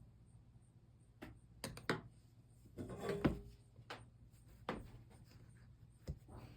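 A string of light clicks and knocks, about seven spread unevenly with a small cluster around three seconds in, as small pieces and tools are handled and set down on a stained-glass workbench.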